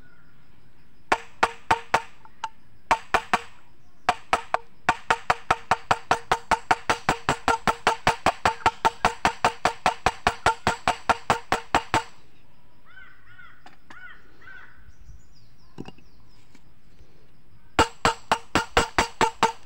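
Hammer blows on an old auto-rickshaw engine valve used as a drift, driving a new 6302 ball bearing home into a motorcycle's rear wheel hub. Sharp taps with a short metallic ring come in a few separate strikes at first, then a fast even run of about four a second. After a pause of several seconds, another run starts near the end.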